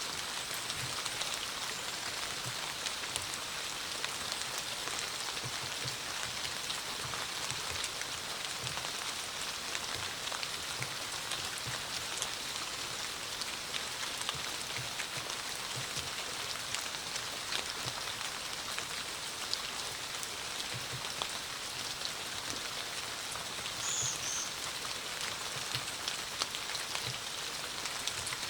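Steady rain falling, with countless small drops ticking and scattered dull, low drips landing. A brief high two-note chirp sounds near the end.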